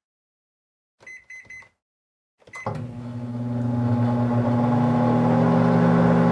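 Microwave oven keypad beeping a few times as it is set, then a click and the oven starting up, its hum swelling over about a second and then running steadily.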